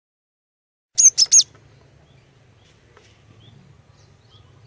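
Female cinereous tit (glatik batu) giving three quick, sharp high call notes about a second in, followed by faint scattered chirps over a low hum.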